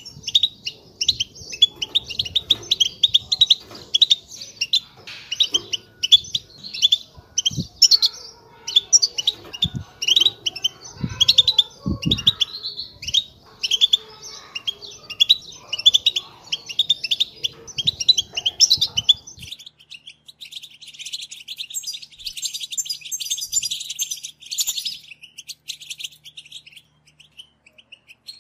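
European goldfinches twittering in a continuous stream of quick chirps: the goldfinch 'batbata' call used as a lure for trapping goldfinches. About two-thirds of the way through, the low background rumble drops out and the twittering becomes higher and denser.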